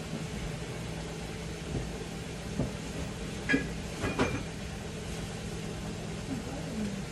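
A steady low mechanical hum, with two faint clicks about three and a half and four seconds in.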